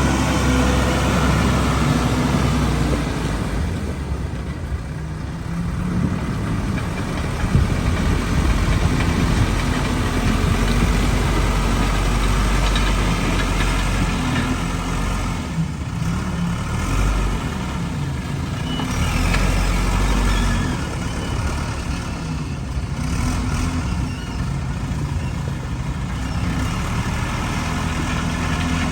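Backhoe's diesel engine running, its note rising and falling now and then as it works.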